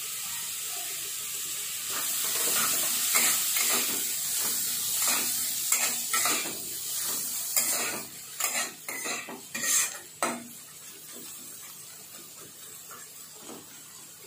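Chopped onions sizzling in butter and oil in a nonstick kadai, frying lightly toward a pale pink. From about two seconds in, a spatula scrapes and stirs them in repeated strokes. The stirring stops around ten seconds, and the sizzle carries on more quietly.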